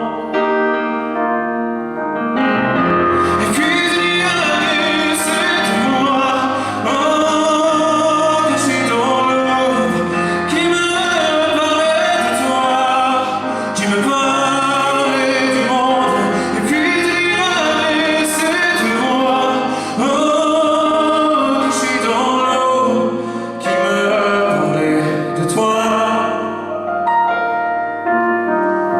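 Live performance of a French pop song: a voice singing with instrumental accompaniment that includes piano.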